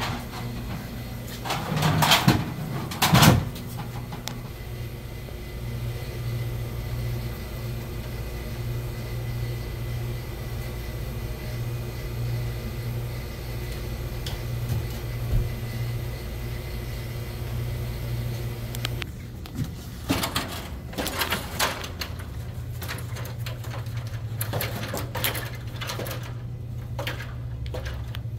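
Knocks, clicks and rattles from handling a cord and cable being pulled through a ceiling, over a steady low hum. Two loud knocks come a couple of seconds in, and a run of clicks and knocks comes near the end.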